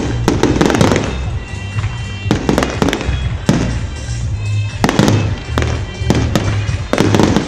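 Fireworks display: a rapid run of bangs and crackling from bursting aerial shells, over music with a heavy bass line.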